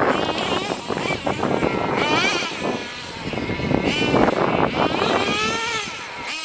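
Small nitro engine of a Tamiya TNX 5.2 RC truck running under load, a high-pitched buzz that rises and falls again and again as the throttle is worked.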